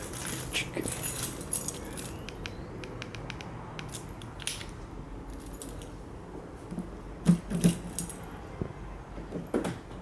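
Keys on a Volkswagen flip-key fob jangling as it is handled, with scattered light clicks and a couple of louder clicks a little after seven seconds in.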